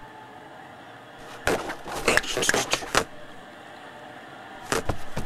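Cartoon foley of a cat's claws scratching and tearing at fabric sofa upholstery in rapid flurries of strokes: one flurry about a second and a half in, a second near the end.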